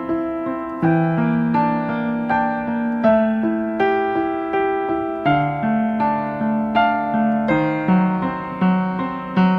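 Calm background music played on a piano or electric piano: notes struck in a slow, even succession and left to ring, several held together as chords.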